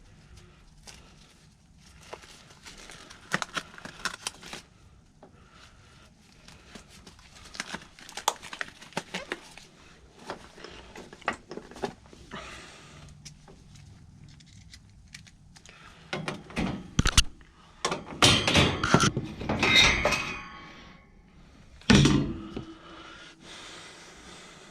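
Irregular metallic clattering, clicks and knocks of tools and furnace parts being handled, with a denser, louder run of clatter about two-thirds of the way through and one sharp knock soon after.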